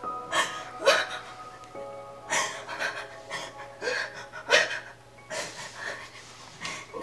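A woman sobbing in ragged, gasping breaths, about one or two a second, over a soft film score of sustained held notes that shift chord about two seconds in.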